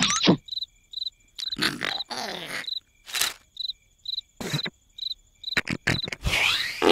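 Crickets chirping in a steady, even run of short high chirps, two or three a second, as night-time ambience, with several brief louder rustling sound effects breaking in.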